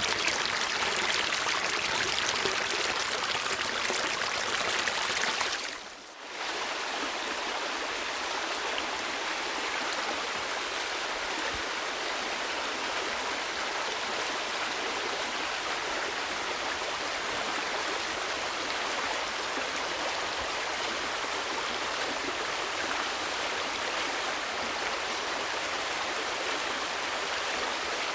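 Flowing stream water running steadily. About six seconds in it briefly fades down and comes back, slightly quieter.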